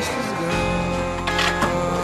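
Background music with sustained steady notes, and a short sharp click about one and a half seconds in.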